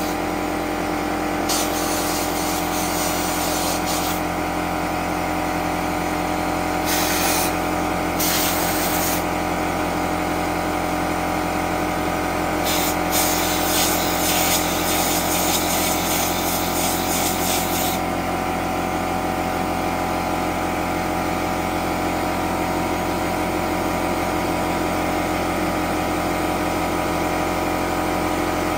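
Porter-Cable pancake air compressor running steadily, with bursts of compressed air hissing from a blow gun as drilled holes in concrete are blown clean of dust before epoxy goes in. There are a few short blasts at first, then a longer one of about five seconds in the middle, and after that only the compressor runs.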